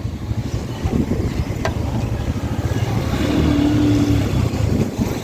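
Motorcycle engine running while riding, getting somewhat louder past the middle, with wind noise.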